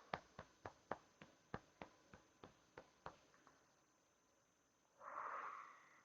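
A run of about a dozen soft, quick clicks, roughly four a second, lasting about three seconds, then a brief soft rushing noise of about a second near the end.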